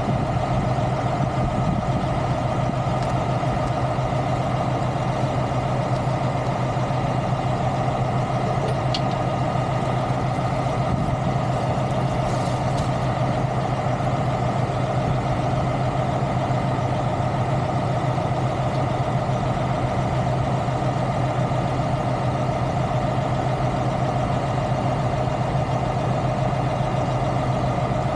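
Semi-truck's diesel engine idling steadily at an even, unchanging speed.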